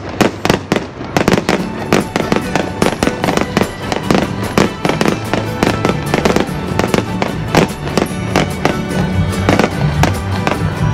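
Fireworks display going off in quick succession, several sharp bangs a second, with music playing underneath.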